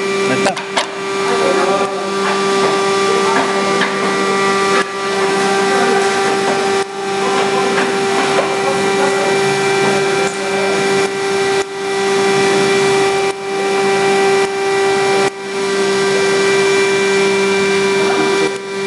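A motor-driven machine running, a steady hum and whine over a rushing noise that drops for a moment and builds back up about every two seconds.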